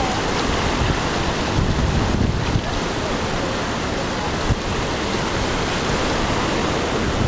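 Ocean surf washing in over the shallows in a steady wash, with wind rumbling on the microphone.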